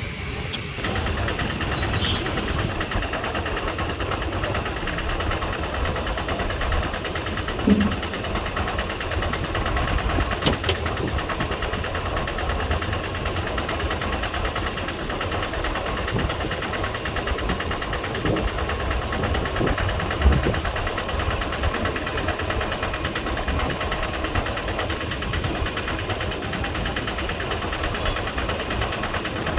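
Engine of a river pontoon ferry running steadily under way, heard from on deck, with a couple of brief knocks about a third and two thirds of the way through.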